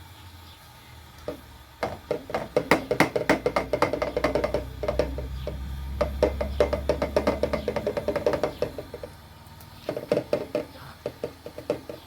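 Rapid, uneven runs of sharp wood-like knocking and tapping that start about two seconds in, pause briefly near the end, then resume.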